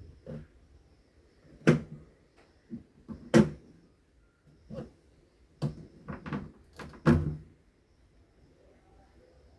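Manual typewriter clacking: about ten sharp strikes at an irregular, unhurried pace, the loudest about two, three and a half and seven seconds in.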